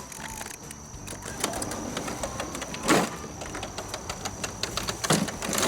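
Scraper scratching caked grass off the underside of a lawn mower deck: quick scratchy strokes, with louder scrapes about three seconds in and again near the end.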